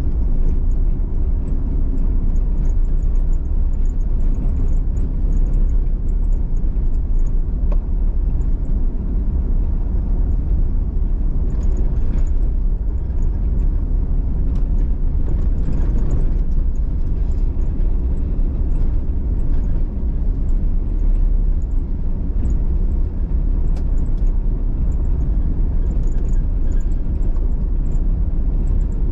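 A vehicle driving along: a steady low rumble of engine and road noise that holds even, with no change in pace.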